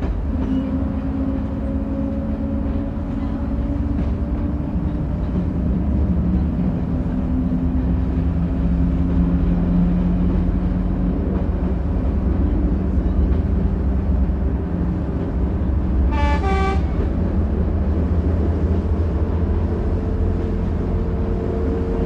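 Diesel railcar engine running steadily, its low hum slowly drifting in pitch, with one short horn toot about sixteen seconds in.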